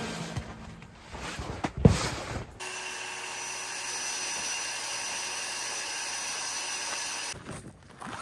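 A few knocks, the loudest about two seconds in, then a small electric motor whirring steadily for about five seconds before cutting off abruptly near the end.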